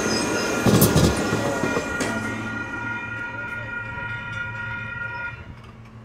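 Sonoma-Marin SMART diesel railcar passing close with a loud rumble of wheels and engine. From about two seconds in, the train's horn sounds one steady held blast as it pulls away, cutting off after about three and a half seconds.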